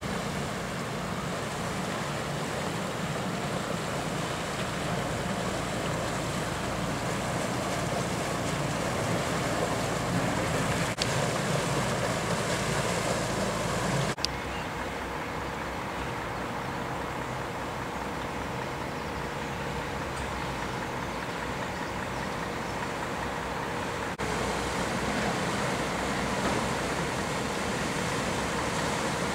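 A small motor barge's engine runs with a steady low rumble as the boat motors past, under a steady hiss. The sound changes abruptly about halfway through and again near the end.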